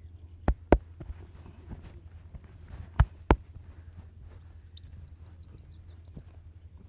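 Sharp massage strikes: four loud smacks in two quick pairs, the pairs about two and a half seconds apart. A steady low hum runs underneath, and a run of short, high chirps in the middle is typical of a small bird.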